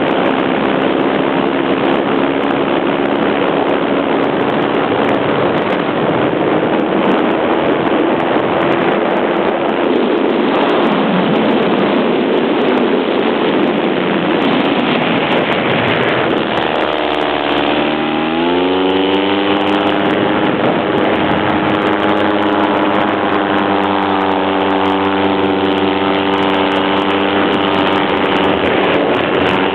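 Paramotor's small propeller engine running under loud wind rush during a steep spiral dive. Around the middle the engine note sinks into the rush, then swoops down and climbs back up to a steady pitch about 18 seconds in.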